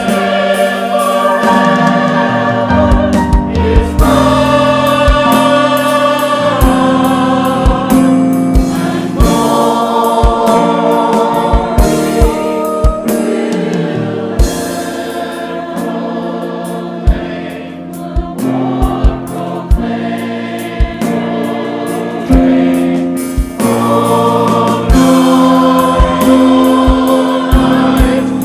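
Church choir singing with instrumental accompaniment: sustained low notes under the voices and sharp percussive hits throughout.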